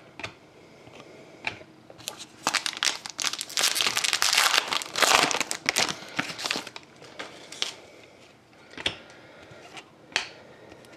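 A foil trading-card pack wrapper crinkling and tearing as it is opened and the cards are pulled out, loudest over about five seconds in the middle. A few short, light clicks of card edges being handled come before and after it.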